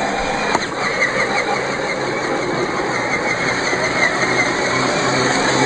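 Electric RC crawler truck driving through a muddy puddle: its motor and gears whine up and down with the throttle over a steady splashing hiss, with a short click about half a second in.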